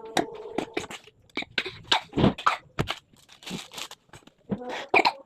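Close-miked eating sounds of someone eating mie goreng noodles: an irregular run of short wet mouth clicks, smacks and crunches from chewing.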